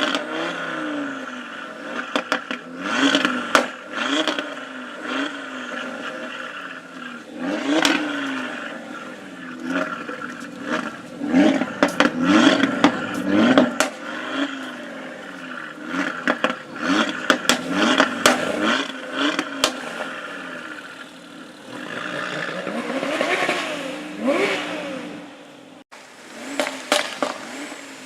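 High-performance car engines repeatedly blipping the throttle in short revs, grouped in several clusters. Sharp exhaust pops and crackles come between the revs, over a steady idling drone.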